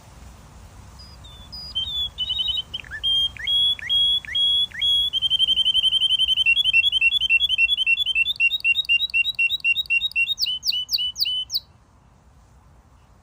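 Domestic canary singing one long song phrase. It opens with a few downward-sliding whistled notes, runs into a fast, even trill, then into quick repeated chirping notes, and stops sharply.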